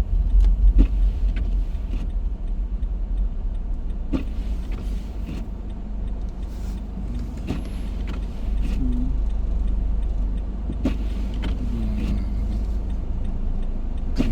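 Steady low rumble, like vehicle road noise, with a few light clicks and knocks over it.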